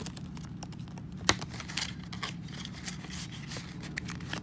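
Paper money and a paper envelope being handled, rustling with scattered light clicks and one sharper tap about a second in, as the bills are put into the envelope.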